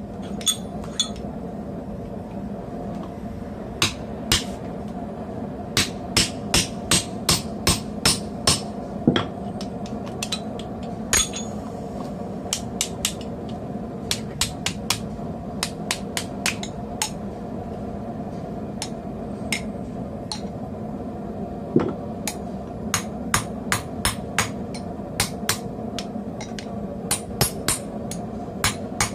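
Blacksmith's hand hammer striking steel on an anvil and jig, in irregular runs of blows with short pauses, heavier near the start and lighter taps later. The anvil sits on a thick rubber mat. A steady low hum runs underneath.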